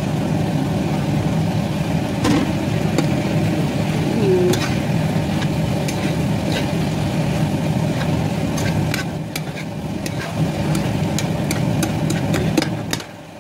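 A metal spoon clinking and scraping against a nonstick frying pan as vegetables and chicken are stirred, in many sharp clicks that come thickest in the last few seconds, over a steady low hum.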